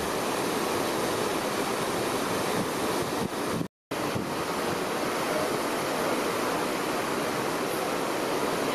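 Steady rushing noise of wind and water heard from the deck of a moving cruise ship, even and unbroken except for a split-second dropout about four seconds in.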